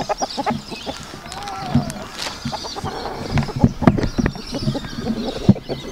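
A flock of chickens clucking, with scattered sharp clicks and knocks throughout.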